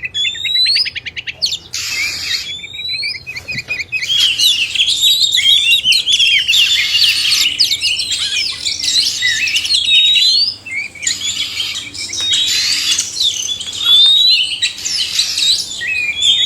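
Male and female Oriental magpie-robins singing together: a dense run of varied whistles, chatter and rapid trills, with a short rising whistle that comes back several times.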